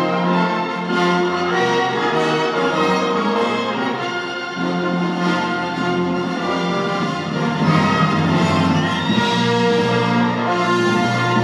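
Orchestral music with strings and brass, played through a Sony SS-U11 bookshelf speaker driven by a McIntosh MAC 1900 receiver and picked up by a microphone in the room.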